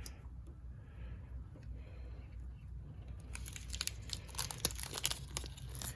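Handling noise from fitting a mini bike brake by hand: scattered light clicks, scrapes and rustles of parts and hardware, growing busier from about halfway through, over a steady low hum.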